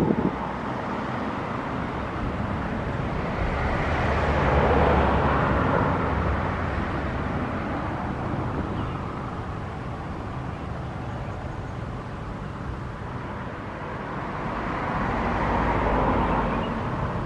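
Outdoor road traffic with a steady low rumble underneath; vehicles swell past twice, once about four to six seconds in and again near the end.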